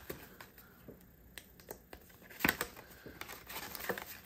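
Paper banknotes and plastic cash envelopes being handled: soft rustling and crinkling with a few sharp clicks, the loudest about two and a half seconds in.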